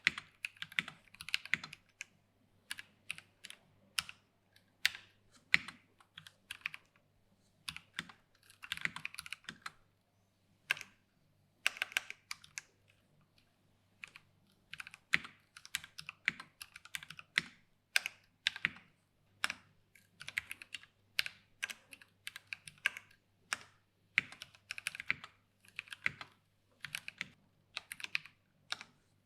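Typing on a mechanical keyboard with Gateron Brown tactile switches, PBT keycaps and an aluminum plate and case: bursts of rapid keystroke clicks broken by short pauses and a few single strokes.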